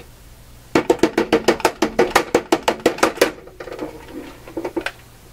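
Fisher MT 223A turntable shaken by hand, rattling and knocking in a rapid clatter of about eight knocks a second for some two and a half seconds, then a few fainter knocks. The shaking is a trick to free the turntable's faulty automatic mechanism.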